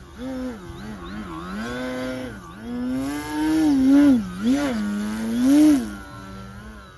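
Scorpion A-3017 brushless electric motor on 6s spinning a 13x6 propeller on an RC aerobatic plane, its whine rising and falling quickly with sharp throttle changes during manoeuvres. It is loudest about four and five and a half seconds in, then settles to a steadier, quieter tone near the end.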